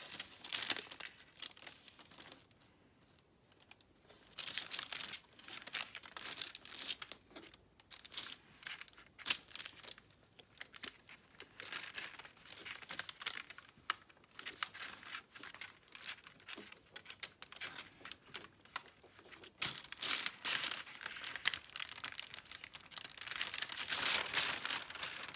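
Hands kneading and stretching sticky slime on a paper sheet: the slime crackles, pops and peels while the paper crinkles, in irregular bursts, with louder spells about four seconds in and again near the end.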